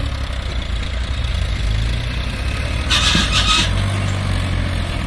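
Farmtrac tractor's diesel engine running steadily under load while it pulls a tillage implement through dry soil. A short burst of noise cuts in about three seconds in.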